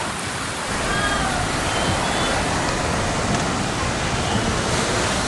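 Rushing floodwater: a steady, loud wash of water noise, with faint voices briefly about one and two seconds in.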